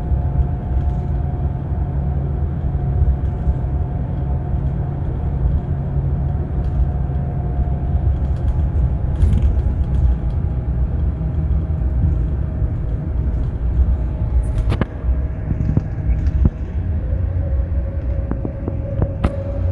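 Scania K360 double-decker coach's diesel engine running with a steady low rumble and a faint whine over it; the whine drops a little in pitch near the end. A few sharp clicks come in the last few seconds.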